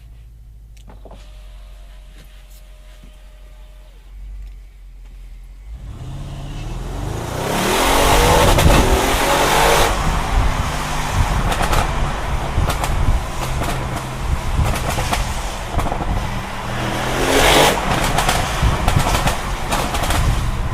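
Audi RS6 Performance's twin-turbo V8 running low and steady for the first few seconds, then revving up hard from about six seconds in to a loud full-throttle run. Many sharp exhaust crackles follow through the rest.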